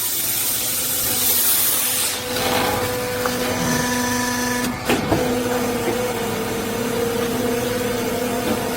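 A machine running steadily: a loud hiss with a steady hum beneath it. The hiss is harsher for the first two seconds, and there is a brief knock and dip about five seconds in.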